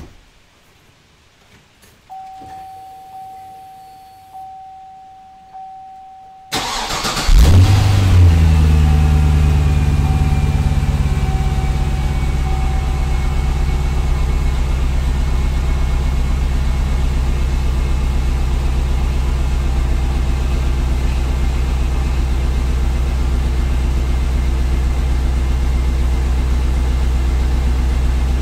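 The car's chime sounds about once a second, then the 2005 Cadillac CTS-V's stock LS6 5.7-litre V8 is cranked and fires with a loud flare, settling into a steady idle through the stock exhaust. The idle starts a little high and eases down over several seconds, as on a cold start.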